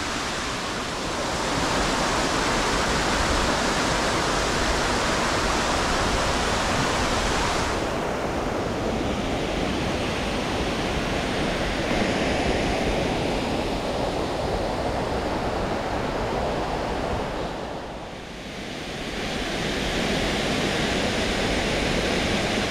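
Steady rush of water from a waterfall on the Borovniščica stream. The tone of the rush changes about eight seconds in, and it dips briefly near eighteen seconds.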